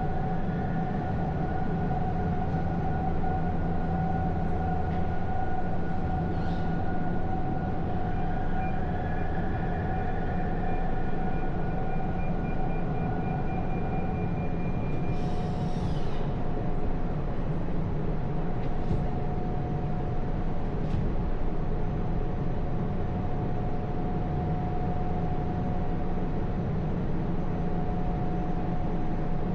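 Steady running noise of a vehicle on the move, a low rumble with a constant whine over it and a brief rattle about halfway through.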